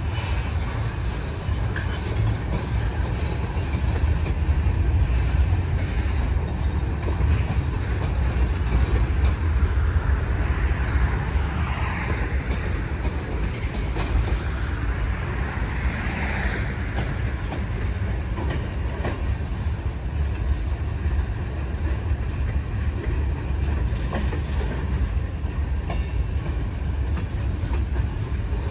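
Freight train cars (tank cars, then centerbeam flatcars) rolling past with a steady heavy rumble of wheels on rail. A high, thin wheel squeal rises over the rumble for a few seconds about two-thirds of the way through and again near the end.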